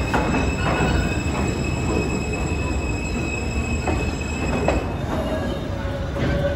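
R160B subway train running alongside the platform: a steady rumble of steel wheels on rail with a thin high squeal, and a few sharp clacks as the wheels cross rail joints. About two-thirds of the way in the squeal fades and a lower hum comes in, rising slightly.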